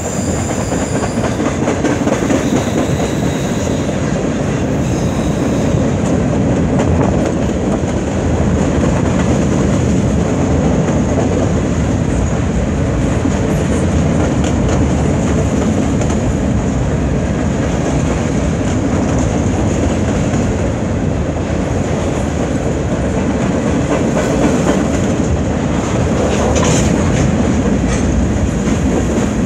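Freight cars of a CN freight train rolling past: a loud, steady rumble of steel wheels on rail. A thin high wheel squeal fades out in the first second, and a brief high screech comes near the end.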